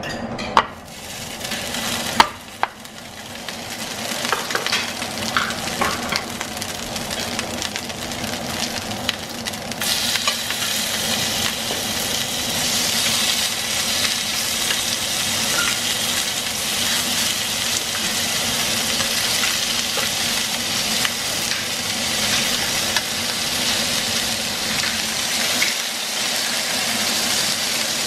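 Raw beef slices and rice sizzling on preheated cast-iron sizzling plates, with a couple of sharp knocks near the start. The sizzle builds over the first few seconds and gets louder about ten seconds in, then holds steady.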